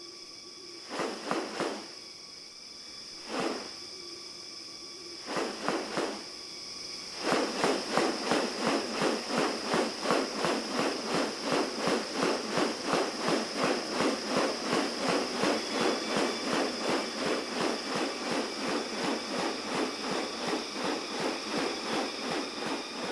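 Forest sounds: a steady high insect drone, with a repeated pulsing animal call that comes in short groups at first and, from about seven seconds in, runs on continuously at about three pulses a second.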